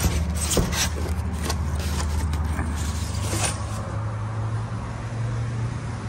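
Steady low machine hum, with a run of short scrapes and knocks over the first three and a half seconds from the phone being handled and brushed against a wall.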